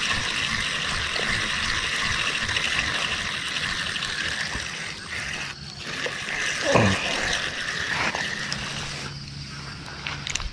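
Night riverside ambience: flowing river water with a steady insect chorus, fading a little near the end. A brief falling-pitched sound about two-thirds of the way through.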